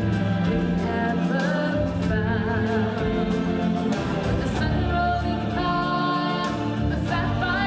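Music with several voices singing together in a choir-like style over a steady instrumental backing, with held, wavering sung notes.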